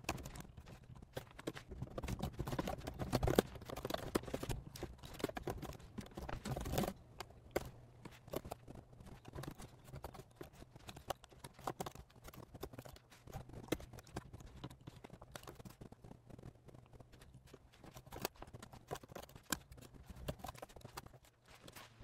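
Computer keyboard typing: quick runs of light keystrokes, busiest in the first seven seconds, then sparser clicks with pauses between them.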